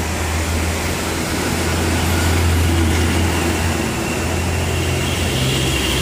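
Road traffic: a concrete mixer truck's diesel engine running with a steady low hum as it drives along, with motorbikes passing.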